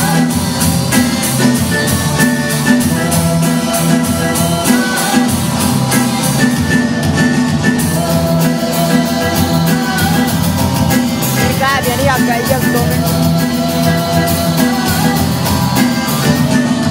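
A group of young singers performing a song together into stage microphones, over accompaniment with a steady beat.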